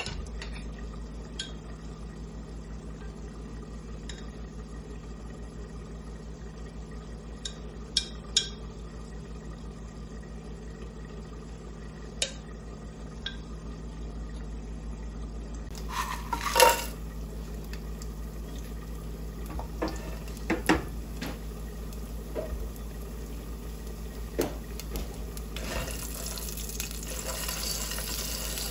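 Kitchen sounds at the stove: scattered clinks and knocks of pots and utensils over a steady low hum, the loudest a clatter about two-thirds of the way through. Near the end a hiss sets in.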